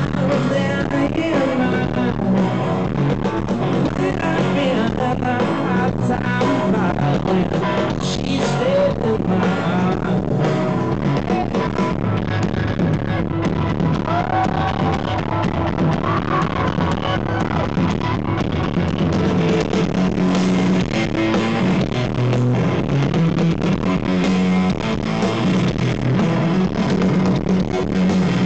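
A live rock band plays: an electric guitar and a drum kit, recorded from within the audience.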